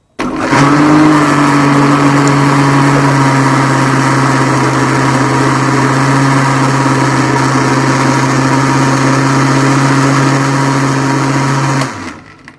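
Electric blender motor running at steady speed, blending strawberries with whipped cream in its jug. It starts suddenly, runs loud and even for about twelve seconds, then winds down and stops near the end.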